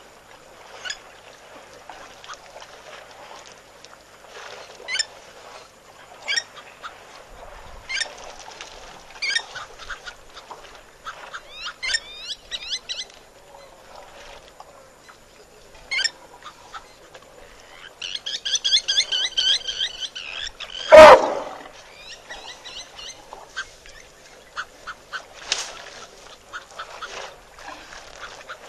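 Birds calling at a waterhole: short calls every second or two, then a fast run of calls, with one loud, short sound about two-thirds of the way through that is the loudest moment.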